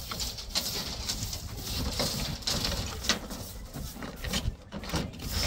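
Straw broom sweeping the dusty metal floor of a truck's cargo bed: a series of irregular scratchy brushing strokes, about one or two a second.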